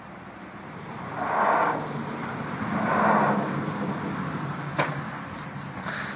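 Plastic baby walker's wheels rolling and scraping over a concrete driveway in two short pushes about a second and a half apart, then a single sharp click.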